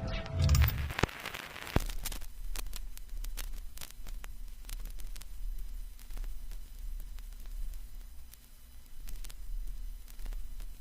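The music fades out in the first second or two, leaving steady static hiss with scattered crackles and a low hum, like the surface noise of a vinyl record.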